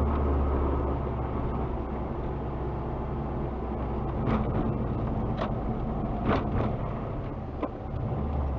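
Subaru Impreza WRX (GDA) on the road, heard from a dashcam inside the cabin: a steady low rumble from drivetrain and road, with a handful of short clicks or knocks in the second half.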